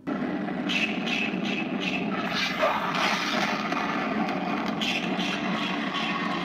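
Life-size animated Jason Voorhees prop switching on and running: a steady mechanical whir that starts suddenly, overlaid with a rapid series of hissing bursts, about three a second.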